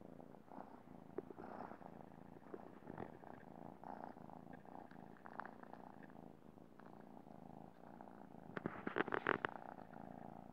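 Kitten purring steadily while it kneads and suckles at a sweater as it would at its mother's belly, with small clicks along the way and a burst of loud clicking about nine seconds in.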